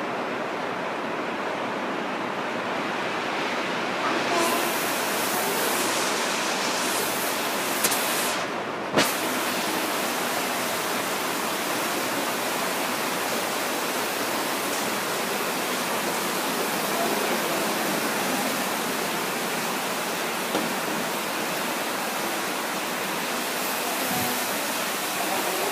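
Steady hiss, brighter from about four seconds in, with one sharp click about nine seconds in.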